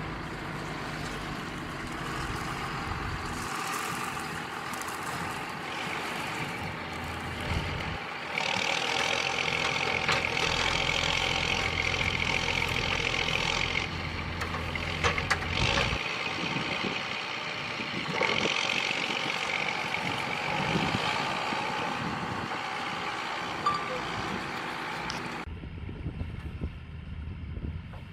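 A machine's engine running steadily, growing louder for several seconds in the middle. It changes suddenly near the end.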